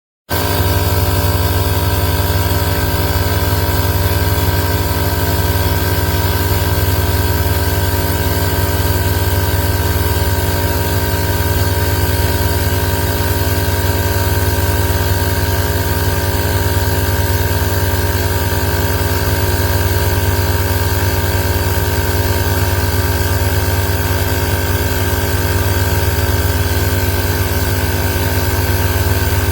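Inzeetor ITI-001 portable 12V tire inflator's compressor motor starts suddenly and runs with a steady, loud, even hum.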